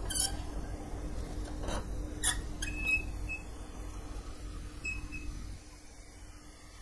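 A few light metallic clicks and taps as thin steel strips are handled and set in a bench vise, with a couple of short faint squeaks, over a steady low hum that drops away near the end.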